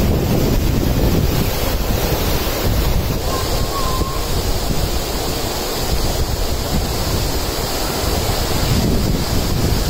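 Steady roar of a large waterfall, heavy water pouring over and onto rock, with wind buffeting the microphone.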